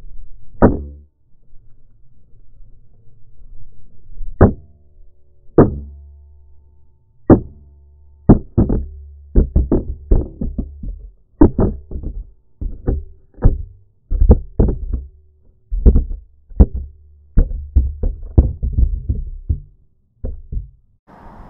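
Irregular knocks and bumps on a GoPro action camera that has come loose from its failed mount, with a low rumble between them. The knocks are sparse at first, then come several a second, and stop near the end.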